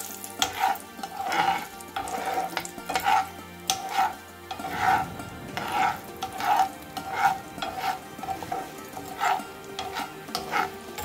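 Metal spoon stirring peanuts and dals frying in hot oil in a frying pan: repeated scraping strokes against the pan, a little more than one a second, over a steady sizzle.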